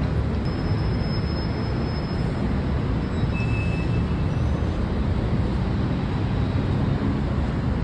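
Steady rumble of city road traffic, heavy in the low end, with no breaks.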